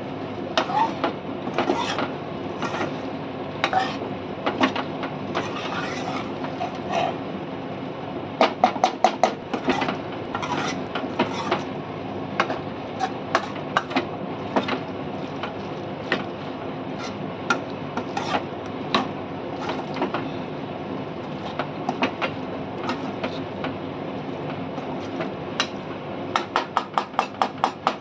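Steel ladle stirring soya chunks in thick tomato masala in a metal pot, scraping and clinking against the pot's sides again and again, with quick runs of taps a little after 8 seconds in and near the end. A steady hum runs underneath.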